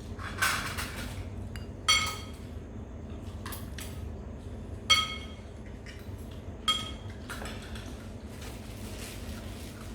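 Eating utensils clinking against dishes: four sharp ringing clinks, the loudest about five seconds in, with a few softer scrapes between them.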